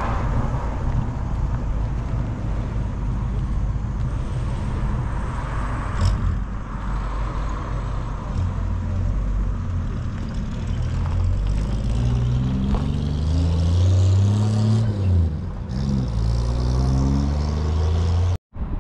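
A car engine running, its note rising and falling several times from about halfway through as the revs go up and down.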